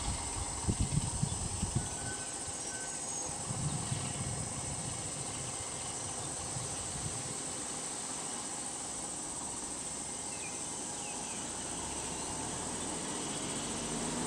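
Steady high-pitched drone of insects in the roadside forest. There are a few low thumps in the first two seconds, and a low engine hum grows near the end.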